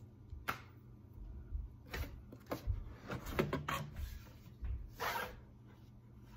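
Rustling and light knocks of cardboard as a rigid gift box is handled and its hinged lid lifted open, with a longer brushing rustle about five seconds in.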